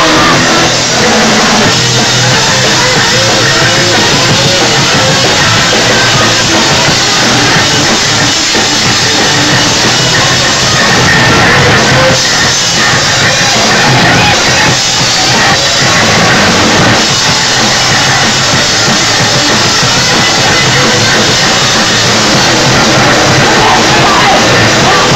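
Rock band playing live and loud: electric guitars through amplifiers and a drum kit.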